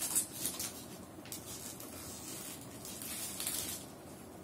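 Rustling and scraping of hands working at a white iPad box to slide the tablet out, in short bursts, with the longest about three seconds in.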